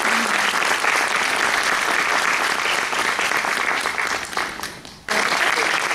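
Audience applauding with dense, steady clapping. The clapping dies down about four and a half seconds in, then cuts back in abruptly at full level.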